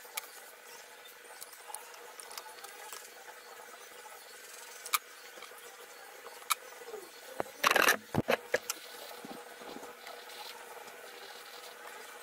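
Hands handling an amplifier board, wires and a wooden speaker box on a workbench: scattered small clicks and taps, then a louder cluster of knocks and rubbing a little past halfway. A faint steady hum sits underneath.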